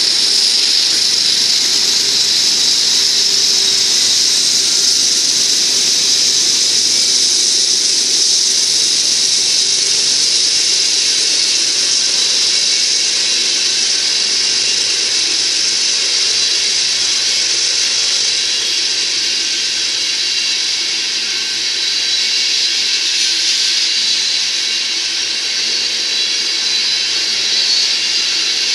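A freight train of tank cars rolling past close by: steel wheels on rail give a loud, steady, high-pitched hiss and whine. A lower hum from the passing diesel locomotives fades out over the first several seconds.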